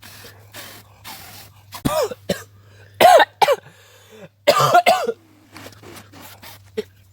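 A person coughing hard in several fits, choking on smoke from the smouldering tinder, after a few short breathy puffs of blowing on it.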